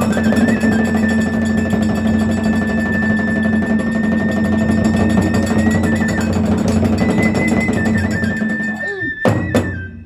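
Kagura hayashi ensemble playing between spoken lines: fast, dense beating on drums and clashing hand cymbals, with a bamboo fue flute holding a long high note. The music breaks off near the end with a few loud strikes.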